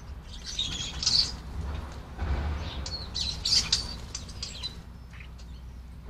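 European starlings calling: harsh chirps and squawks in two bouts, one about half a second in and one from about three to nearly five seconds in. A brief wing flutter comes a little after two seconds.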